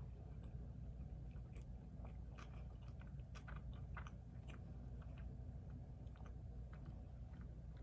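Close-miked chewing of food, with scattered small wet mouth clicks and crunches over a steady low hum.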